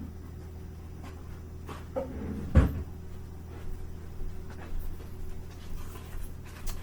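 Kitchen handling noise over a steady low hum: a small knock about two seconds in, then one sharp, louder knock about half a second later, and a few faint clicks.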